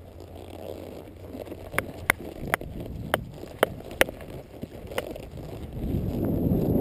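A polo mallet tapping a ball along the grass: about seven sharp clicks, roughly two a second, over the horse's hoofbeats and wind on the microphone. The hoofbeats and wind grow louder near the end.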